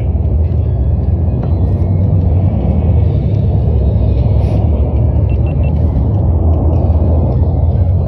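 Steady, low jet rumble from the Black Eagles' T-50B aerobatic jets flying in formation at a distance.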